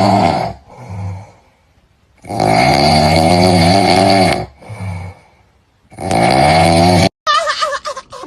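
Three loud, drawn-out, raspy wailing cries, the middle one the longest at about two seconds, with quieter breathy sounds between them.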